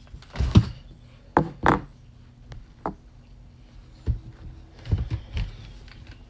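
Handling noise at a desk: papers and objects being picked up, moved and set down, heard as a run of irregular knocks and thumps over a faint steady hum.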